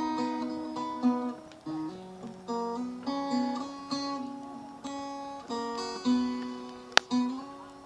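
Acoustic guitar music, plucked notes and chords ringing out and fading. A single sharp click comes near the end.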